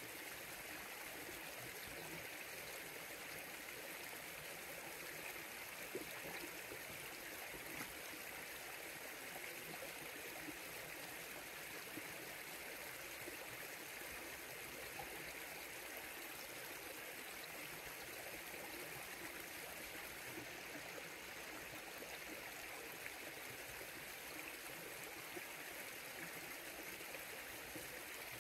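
River water flowing steadily over rocks, a continuous even rush with small splashes.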